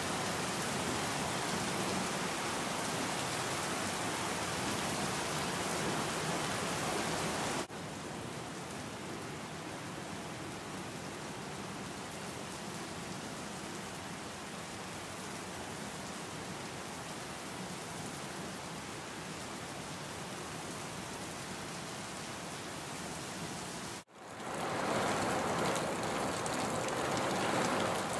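Heavy rain falling steadily, a dense even hiss of drops on the ground and the layout. It drops abruptly to a quieter level about a quarter of the way in, then after a brief gap near the end comes back louder.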